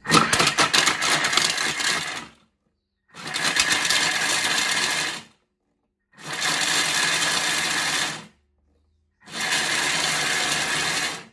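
Thermomix blitzing pitted medjool dates in four short bursts of about two seconds each, with a second's pause between them; the blades chop the dates at high speed. The first burst starts with a rattling of date pieces being thrown against the bowl.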